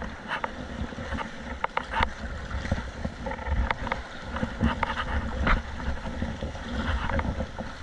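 Water splashing and slapping around a kayak paddled through waves, in many short irregular splashes, with wind buffeting the microphone.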